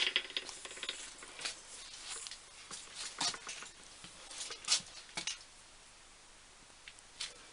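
Scattered light clicks, taps and rustles, thinning out after about five seconds, with one more click near the end.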